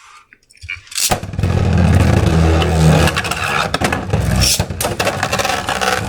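Two Beyblade spinning tops are launched into a plastic stadium with a sharp snap about a second in. They then spin and grind against the stadium floor with a loud, steady whir, with repeated clacking hits as they collide.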